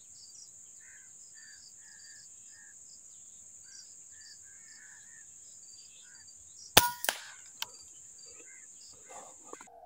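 A QS Mk3 BT PCP air rifle fires once, a sharp crack about two-thirds of the way in, followed by a second, quieter crack and a click a moment later. A steady buzz of insects and scattered bird chirps run underneath.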